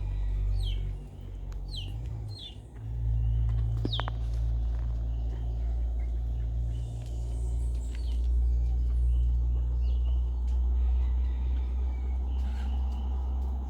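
A bird giving short, high chirps that slide downward, four of them in the first four seconds, over a steady low rumble.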